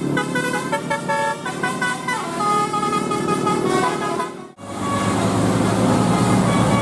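Bus telolet horn, a multi-tone air horn, playing a melody of quick changing notes. After an abrupt break about four and a half seconds in, a bus engine is running with a noisy rush and a few horn tones.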